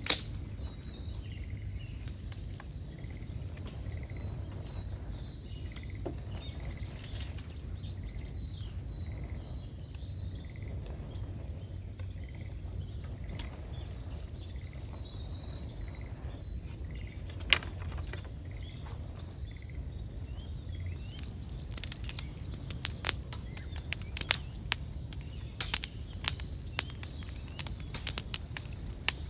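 Outdoor bonfire crackling and popping over a steady low rumble, the pops coming thick in the last third, while small birds chirp every few seconds.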